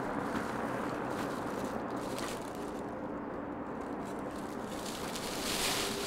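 Steady outdoor background noise with faint footsteps on a dirt path, and a brief loud hiss near the end.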